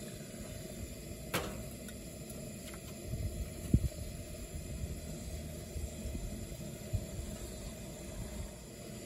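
Vegetables sizzling in a frying pan over a canister gas camp stove, a steady hiss, as they are stirred with chopsticks. A sharp click about a second in and a few low thumps around the middle, the loudest sound of all, come from the pan and utensils being handled.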